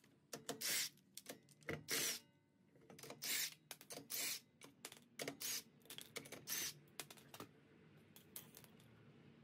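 Floor jack being pumped by its handle to lift the car: a series of short, quiet, noisy strokes, often in pairs, about one or two a second.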